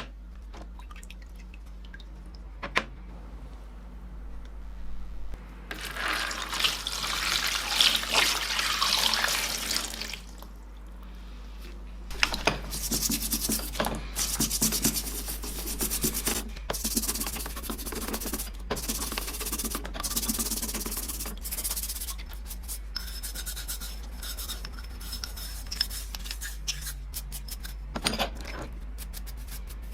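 Hand rubbing and scrubbing strokes on a metal tool part, as in rust removal, going in uneven spells with short pauses. A few sharp clicks sound near the start and near the end, over a steady low hum.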